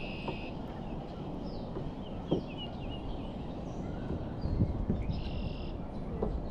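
Wild birds chirping and trilling over a steady low background rumble, with one light knock about two seconds in.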